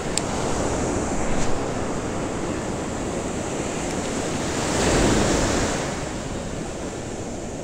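Ocean surf breaking and washing up a sandy beach in a steady rush, swelling louder as a wave comes in about five seconds in.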